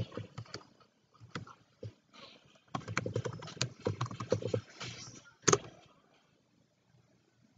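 Plastic water bottle being handled on a desk: scattered clicks, then a dense run of clicking and rattling, and one sharp knock about five and a half seconds in.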